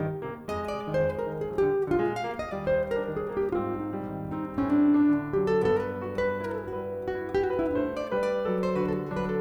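Live jazz played on acoustic guitar and piano, a flowing line of quickly picked notes over chords.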